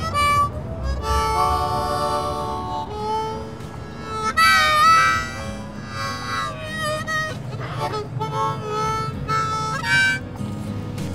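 Harmonica playing: held chords, then single notes that bend and waver in pitch, with the loudest bent note about four and a half seconds in.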